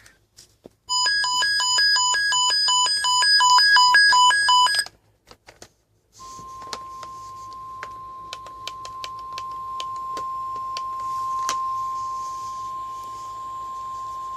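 Electronic alert beeping that switches rapidly back and forth between two pitches for about four seconds. After a short gap comes the NOAA Weather Radio 1050 Hz alert tone: one steady tone held for about eight seconds over faint radio crackle, signalling a weather alert about to be read.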